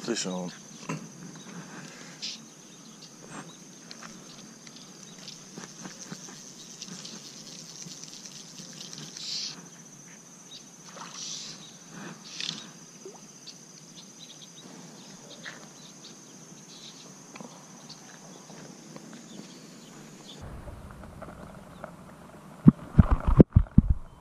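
Insects drone steadily on one high pitch, with scattered light clicks and ticks from the fly rod and line being handled. About 20 s in the sound turns dull as the camera goes underwater, and loud knocks and splashes follow while a sunfish is held in the water.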